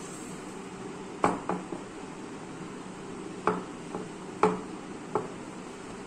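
Toy dolls being handled and set down on a plastic toy table and chairs: about seven light, sharp knocks in small groups over a steady room hiss.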